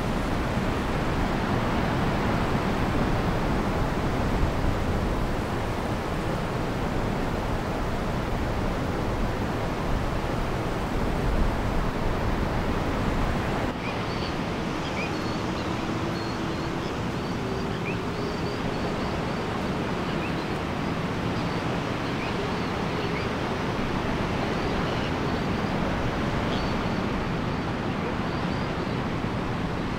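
Steady rushing noise of sea surf on a beach. About halfway through the sound changes, and faint short high chirps come and go over the noise.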